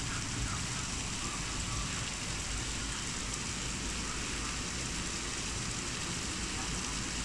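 Heavy rain pouring steadily: an even, unbroken hiss of a downpour, with a low steady rumble underneath.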